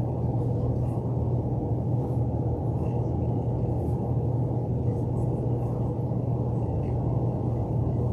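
Steady low hum and rumble of background noise, strongest in the low bass, with no change throughout.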